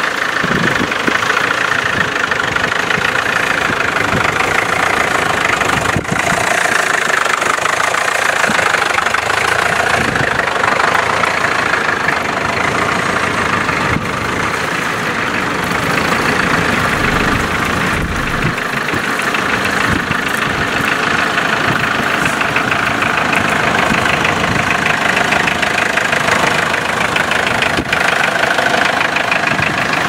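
Vintage tractor engine running steadily while it pulls a plough, loud and close.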